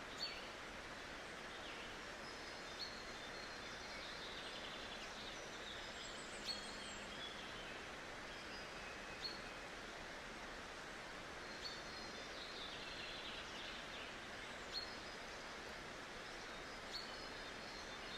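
Steady outdoor background noise with short, high bird chirps every two or three seconds and some fainter twittering.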